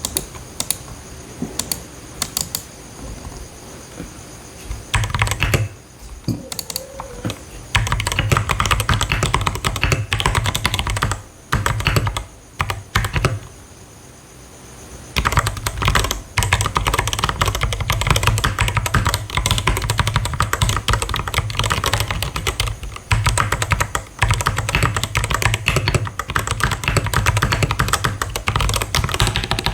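Typing on a Vortex VX8 mechanical keyboard with brown switches in an unfoamed case: clacking keystrokes, sparse at first, then fast and continuous, with a pause of a few seconds a little before the middle.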